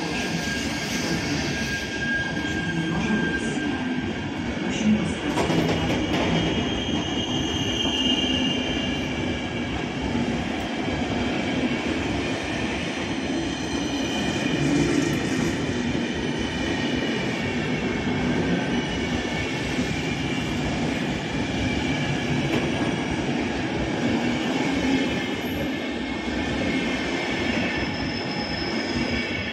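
PKP Intercity passenger coaches rolling past along a platform: a steady rumble of wheels on the rails, with thin high-pitched wheel squeals coming and going over it.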